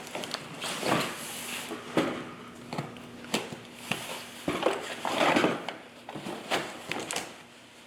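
Handling noise as a box is opened and its contents taken out: an irregular run of knocks, clicks and short scraping and rustling sounds.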